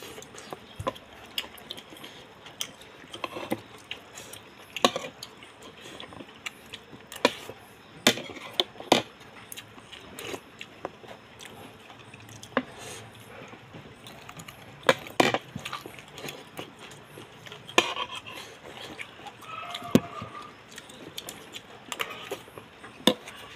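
Eating at a table: irregular sharp clinks and taps of a spoon against ceramic plates and bowls, a dozen or so spread out, with quieter handling noise between them.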